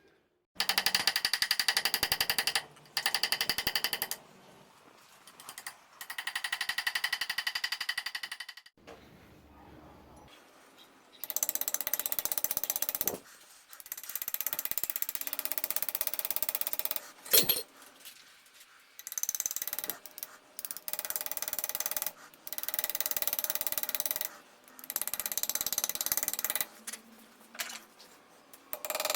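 Power hammer pounding a hot steel billet in bursts of rapid blows lasting one to three seconds, with the struck steel ringing, separated by short pauses.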